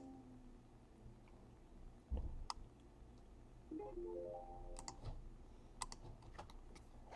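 Faint clicks and taps from fingers handling a stiff trading card, scattered through a quiet stretch, with a short run of faint background music notes about halfway through.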